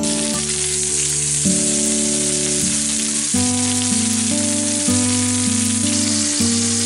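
Bacon sizzling steadily on an electric griddle, with soft background music underneath.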